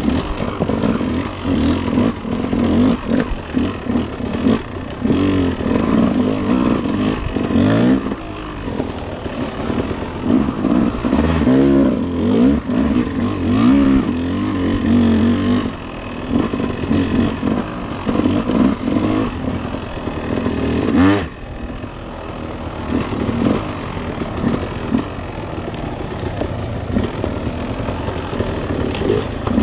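Dirt bike engine running under changing throttle, its pitch rising and falling as it revs up and eases off. Near the end there is a sudden loud spike, after which the engine note drops and runs lower and steadier.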